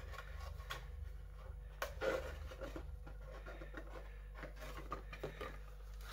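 Cardboard toy packaging being handled: faint rubbing and scraping of card as the box's flaps are worked open, with a few light clicks and a louder rustle about two seconds in.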